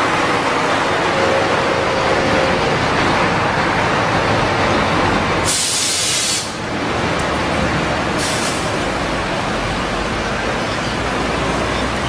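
A long road train of container trailers rolling past: a steady rumble of tyres and running gear, with two short bursts of air-brake hiss about five and a half and eight seconds in.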